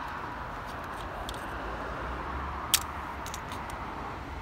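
Steady outdoor background noise with a low hum, a few faint ticks, and one sharp click near the middle.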